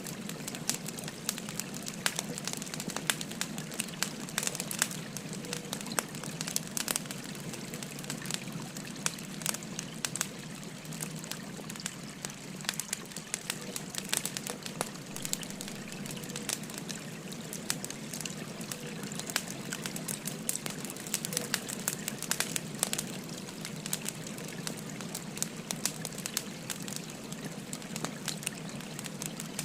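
Burning firewood crackling with frequent sharp pops over the steady rush of a flowing stream.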